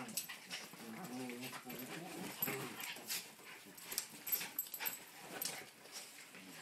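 Two terriers, a cairn terrier and a terrier mix, play-fighting: short low growls about one and two seconds in, with quick clicks and scuffling throughout as they wrestle and snap at each other.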